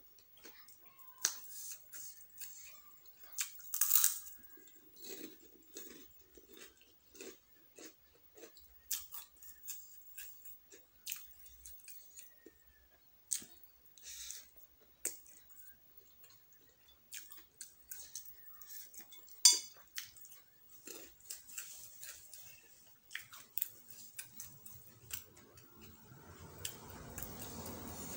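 Close-up chewing of spicy fried noodles and meatballs: wet mouth sounds, smacking and small crunches, with light clicks of a fork on the plate. One sharp click comes about two-thirds of the way through, and a louder bite a few seconds in.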